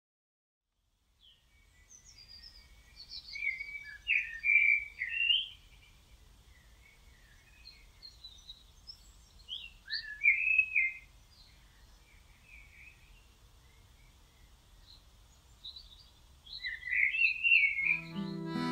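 A songbird singing in three short warbling phrases a few seconds apart, over a faint low background rumble. Harmonica music starts right at the end.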